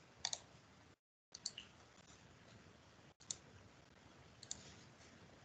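Four faint computer mouse clicks, a second or more apart, some as quick double clicks, over near silence.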